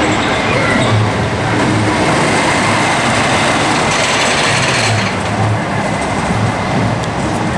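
Wooden roller coaster train running along its track: a loud steady rumble and clatter of wheels on the rails, with a pulsing low thud every half second to a second.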